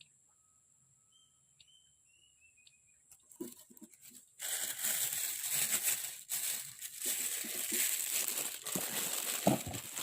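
A few faint, thin bird-like calls, then from about four seconds in a loud, continuous rustling and crinkling noise, like close handling of gear or a bag.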